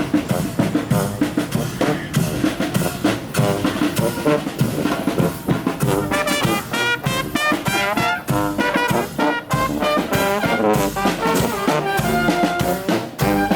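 Street brass band playing: trumpets and trombones over drums, with a run of fast wavering high horn notes about halfway through.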